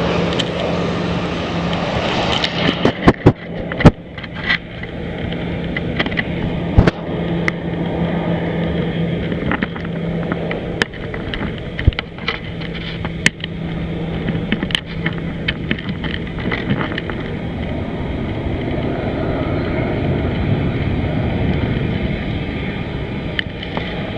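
Jet engine noise from a Boeing 747-400 freighter at takeoff, a steady roar that loses its hiss about two seconds in. Sharp clicks and knocks hit the microphone repeatedly through the first two-thirds.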